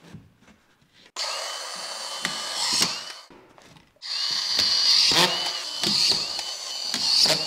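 Makita cordless screw gun driving screws into plasterboard, in two runs: one from about a second in and a longer one from about four seconds in. Its motor whine rises and drops again and again as each screw is run in.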